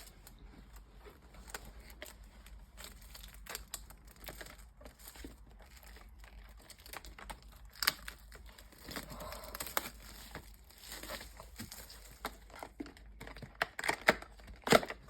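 Packaging of a box of trading cards being crinkled and torn open by hand, in scattered small crackles and snaps.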